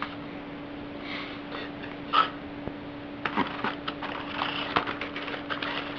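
Plastic packaging and headphones being handled during unboxing: a couple of short rustles, then a quick flurry of small clicks and crackles from about three seconds in, over a steady low hum.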